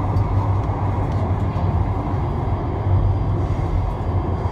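Ui LRT UL000-series two-car light-rail train running through a tunnel, heard from inside the front car: a steady low running noise of steel wheels on rails.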